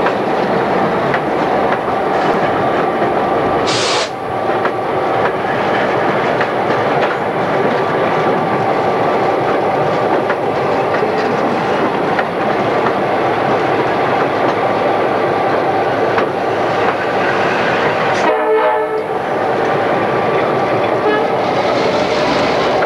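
EMD GP9 diesel-electric locomotive running under way, heard from inside its cab: a steady, loud engine and running noise with a constant whine, and a brief sharp noise about four seconds in.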